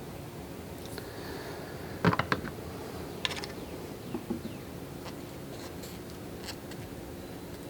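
A few sharp clicks and clinks of hand tools and small parts being handled while fitting a fuel rail. The loudest cluster comes about two seconds in and single clicks follow, over a steady low hum.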